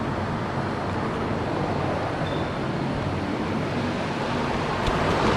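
Steady background rumble and hiss like distant road traffic, with a faint click near the end.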